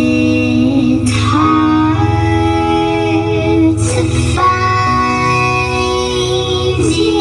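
Music played loud through a large sound system with subwoofers: a plucked-guitar melody with held tones over a strong deep bass.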